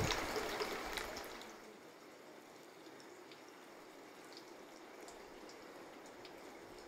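Hot-spring water running from a wooden spout into an outdoor bath. The sound fades after about a second and a half to a faint hiss with a few small drips.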